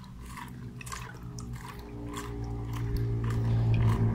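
Water sloshing and splashing as a hand stirs it round a plastic bucket, about two strokes a second, dissolving sugar in the water. Under it a steady low hum grows louder through the second half.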